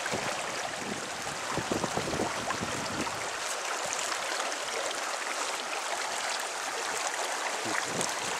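Small creek running steadily over riffles, with a few short splashes from a hooked brook trout thrashing at the surface.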